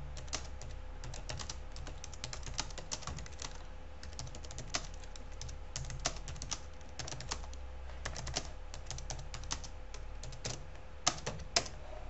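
Typing on a computer keyboard: runs of quick key clicks with short pauses, and two louder key strokes near the end.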